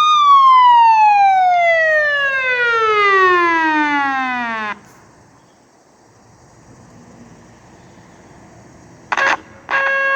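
Federal Signal PA-15A electronic siren sounding its wail: the tone glides slowly down from its peak and cuts off suddenly after about four and a half seconds. After a pause, a short blast and then a steady buzzy tone start near the end.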